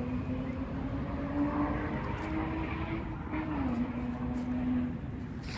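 A steady engine drone with a wavering pitch that drops a little about three and a half seconds in and fades near the end, over a constant low rumble.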